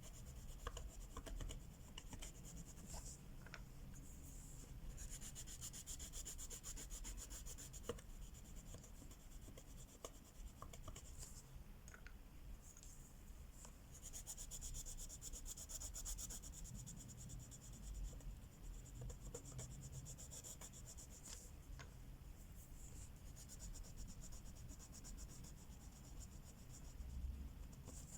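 Wax crayons rubbing quickly back and forth across a coloring-book page, in runs of fine scratchy strokes broken by short pauses, with a few faint clicks.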